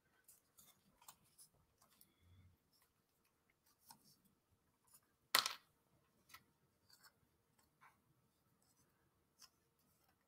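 Faint, scattered clicks and scrapes of thin wooden puzzle pieces being handled and slotted together, with one sharper click about five seconds in.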